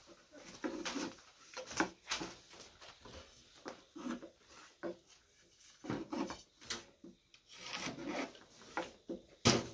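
Thin wooden rolling pins rolling and rubbing over floured flatbread dough on low wooden boards, with irregular light clacks of wood on wood and a sharper knock near the end.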